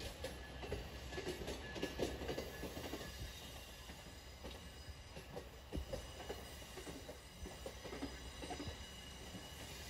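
Amtrak passenger coaches, among them Siemens Venture cars, rolling past on steel rails. There is a steady low rumble, and the wheels click and knock irregularly over the rail joints and track.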